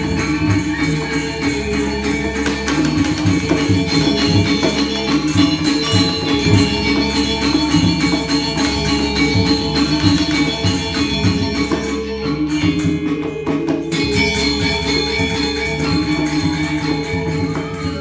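Balinese gamelan orchestra playing Barong dance music: bronze metallophones ring a fast repeating melody over drum beats and jangling small cymbals. The cymbal jangle drops out for a couple of seconds about two-thirds of the way through, then comes back.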